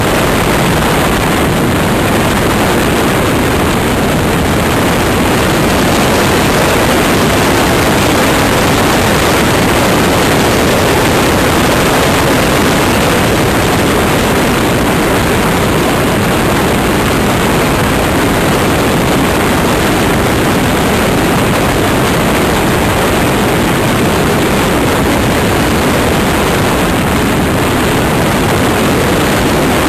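Loud, steady rush of airflow over a camera riding on the wing of a model motor glider in flight, with no distinct motor tone standing out.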